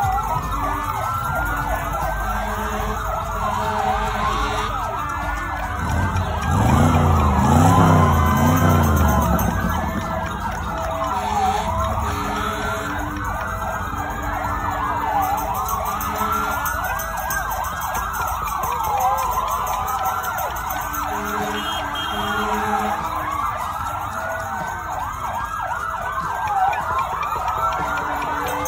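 Several emergency-vehicle sirens wailing at once, their rising and falling tones overlapping, with car horns honking in short blasts throughout. A louder, deeper wavering tone joins for about three seconds, about six seconds in.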